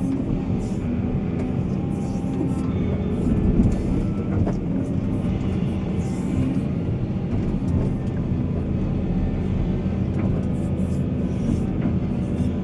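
Heavy diesel mining machinery, such as an excavator or dump truck, running steadily under load, with a few faint knocks.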